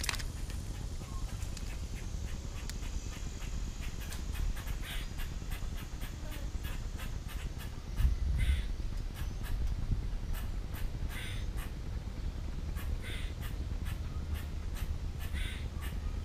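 A bird giving short calls every couple of seconds over a steady low wind rumble on the microphone, with scattered light clicks.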